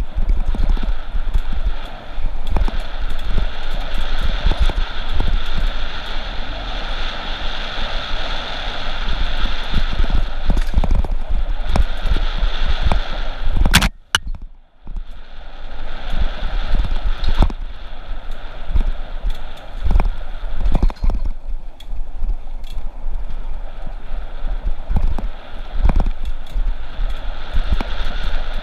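Mountain bike riding a bumpy dirt singletrack, heard through a handlebar-mounted camera: continuous wind buffeting on the microphone, with the bike and camera mount rattling and knocking over roots and bumps. About halfway through there is one sharp crack, and the sound briefly drops out.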